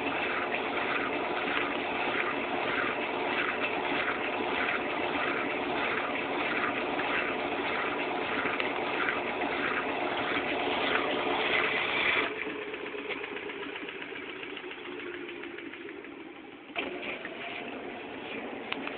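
Class 6 kg washing machine running in its rinse drain-and-spin stage with a steady whir and an even pulse of about two a second. About twelve seconds in the motor cuts off and a falling hum follows as the drum slows, then the machine starts up again near the end.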